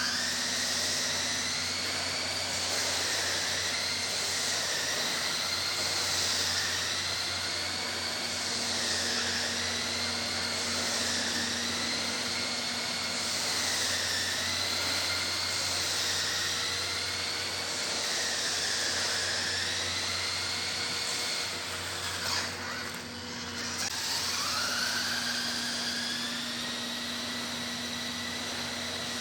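Toy RC monster truck's small electric motor and gearbox whining as it drives, the pitch rising and falling every second or two with the throttle. Around two thirds of the way through the whine drops away briefly, then winds back up.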